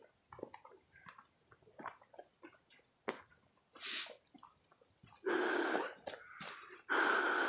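Footsteps crunching through dry leaves and twigs on a woodland trail, with scattered crackles. Near the end come two louder, longer rustles, each about a second long.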